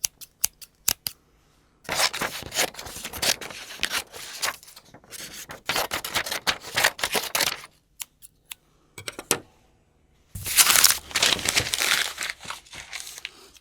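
Scissors cutting. First come a few quick separate snips, then three longer stretches of continuous cutting, each a dense rasping run of snips. A few more single snips fall between the second and third stretches.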